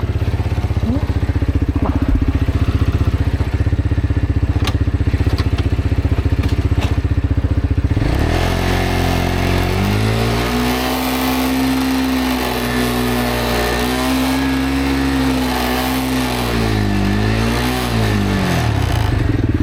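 Road motorcycle engine running at low revs for about eight seconds, then revved up and held at higher revs for several seconds, with a brief dip and rise, before the revs drop back near the end.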